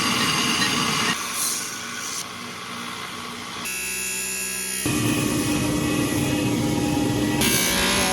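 Workshop power tools running with a steady whir and hum, in short segments that change abruptly several times, as in a cut-together montage of blade grinding and shaping.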